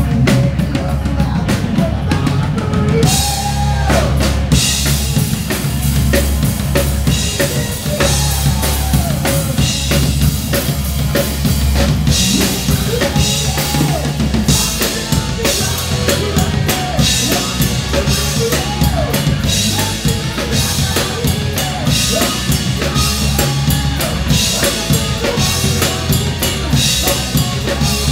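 Live rock band playing loud through amplifiers: drum kit with kick, snare and cymbals driving a steady beat under electric guitar and bass guitar. The cymbals drop out briefly about three seconds in, then come back.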